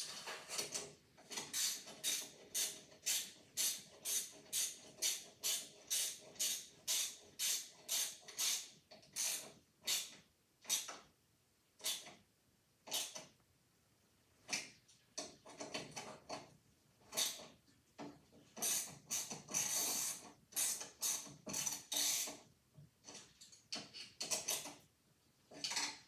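A series of short, noisy mechanical strokes from a cartoon sound effect. They come evenly about two a second for roughly the first nine seconds, then irregularly with pauses.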